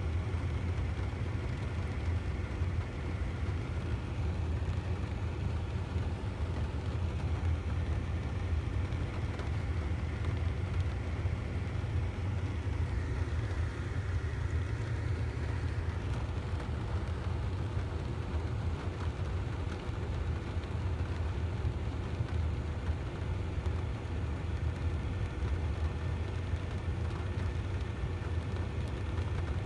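Steady moderate rain over a constant low hum, with no change and no thunder clap.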